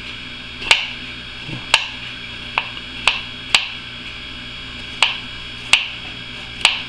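Kitchen knife knocking on a wooden cutting board as ginger root is peeled and trimmed: about eight sharp knocks at uneven intervals, over a steady background hum.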